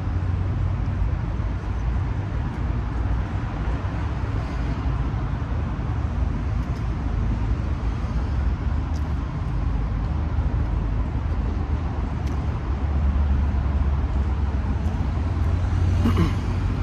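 Steady street traffic noise, a low rumble that swells for a couple of seconds about three-quarters of the way through.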